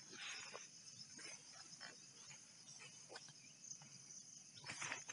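Faint, steady high chirring of insects in the background, with a few scattered soft rustles, loudest near the end, as someone steps through wet grass.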